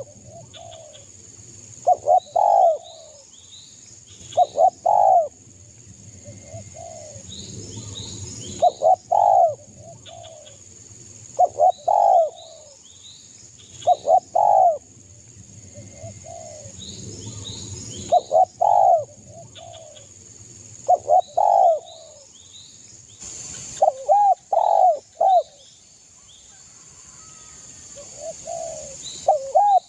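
Spotted dove (derkuku) cooing repeatedly in short phrases of two or three coos, one phrase every two to three seconds, the calling of a bird in full song. Fainter chirps of small birds and a steady high insect-like whine run behind it.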